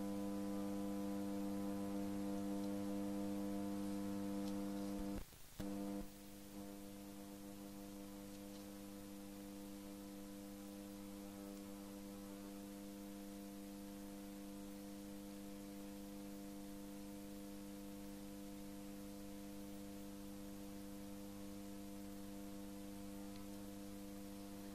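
Steady electrical mains hum with a stack of overtones. It drops out briefly about five seconds in and comes back a little quieter.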